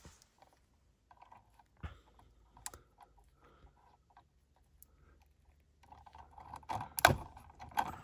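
Wire stripper and pliers clicking and scraping on a house wire as its insulation is stripped: scattered small clicks, then a busier run of clicks and scraping near the end, the loudest snap about seven seconds in.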